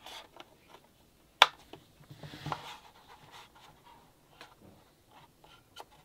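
Hands handling objects on a desk during an unboxing: a sharp click about one and a half seconds in, then a second or so of rustling and scraping, with scattered lighter clicks and taps.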